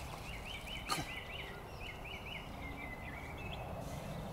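A small songbird singing a quick run of short, repeated chirping notes, over steady outdoor background noise. One sharp click about a second in.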